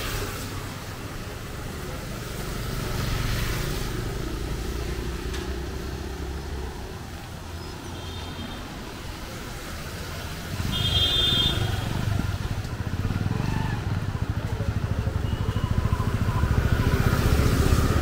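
Street traffic on a rain-wet road: motorcycles and other vehicles running past with a low engine rumble, which grows louder about halfway through as one comes close. Short high-pitched beeps sound about eight seconds in and again about three seconds later.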